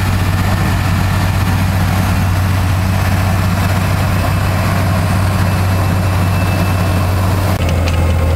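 Claas tractor's diesel engine running steadily under load while pulling a plough through the field, a continuous low drone that drops slightly in pitch near the end.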